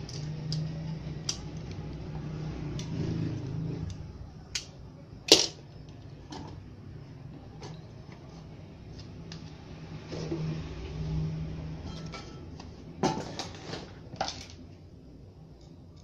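Scattered clicks and knocks of a screwdriver and an aluminium heatsink with its amplifier chip being handled on a workbench, the sharpest knock about five seconds in and a quick cluster of knocks near the end. A low hum sits underneath, swelling at the start and again about ten seconds in.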